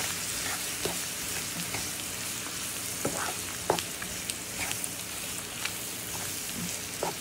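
Butter and sugar sizzling steadily in a hot pan with drained canned green beans, the sugar cooking down into a caramel sauce. Scattered short clicks sound over the sizzle.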